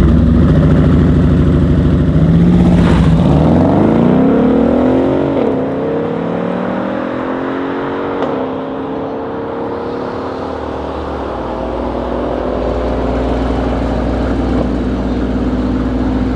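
Two V8 cars, a Mercedes-AMG S63 coupe with an Akrapovic exhaust and a McLaren SLR, revving at a drag-strip start line and then launching about three seconds in. The engine note rises steeply, drops at an upshift a couple of seconds later, and keeps climbing as it fades with the cars accelerating away down the quarter mile.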